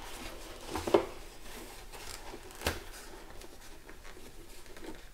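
Hands rubbing and rustling against the fabric liner of a motorcycle helmet while pulling a speaker wire through, with a sharp knock about a second in and a smaller click a little before the middle.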